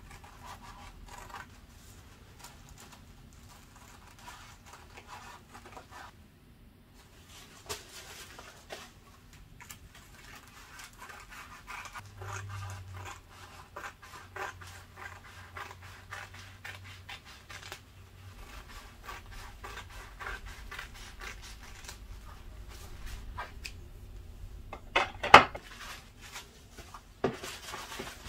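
Scissors snipping through thin white paper, with paper rustling and crinkling as the sheets are handled and folded. Two sharp knocks near the end.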